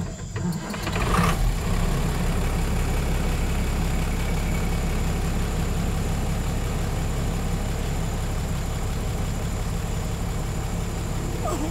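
An old diablo rojo bus engine catches about a second in after another attempt and then idles steadily.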